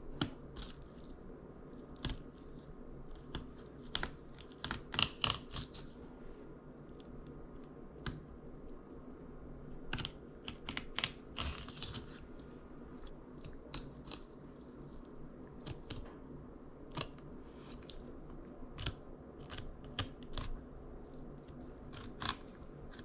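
Fillet knife clicking and crunching against a fluke's rib bones as it is cut, in irregular sharp clicks, with quick runs of them about five seconds in and again about eleven seconds in.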